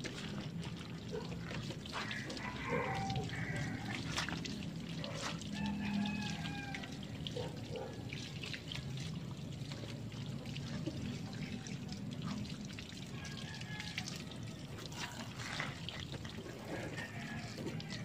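Water running steadily from a garden hose onto a motorcycle as it is washed.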